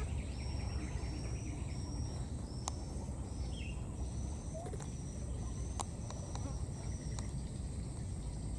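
Outdoor insect ambience: a steady high insect drone with short high chirps repeating about one and a half times a second, over a steady low rumble. A few faint clicks and a couple of brief faint squeaks come through near the middle.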